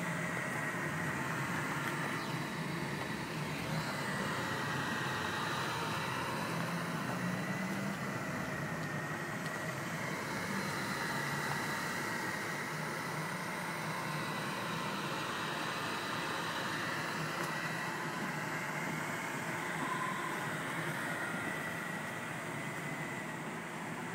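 1989 Mercedes-Benz 300SE's 3.0-litre inline-six engine idling steadily.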